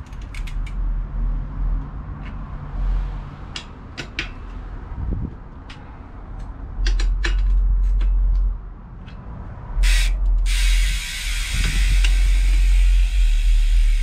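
Scattered light metallic clicks and creaks of BMX bike parts being handled during assembly, over a low rumble. From about ten seconds in, a loud steady hiss takes over.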